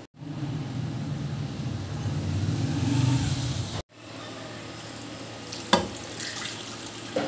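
A steady low noise that grows louder and then cuts off abruptly about halfway. Near the end comes a clink, then water pouring from a glass onto raw mutton and spices in a large cooking pot.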